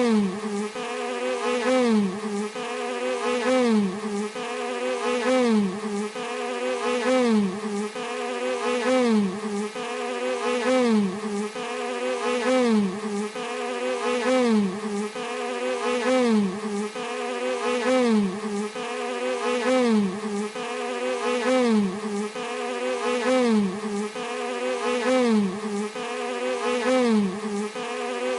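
A bee buzzing in a continuous drone, its pitch dipping and recovering and its loudness swelling over and over every second or two, like a repeating loop, played as a tinnitus masking sound.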